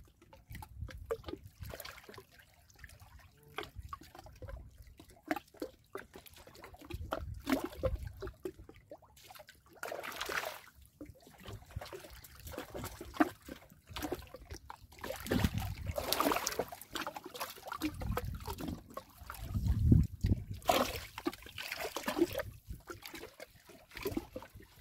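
Water sloshing and splashing in uneven bursts, loudest about sixteen and twenty seconds in.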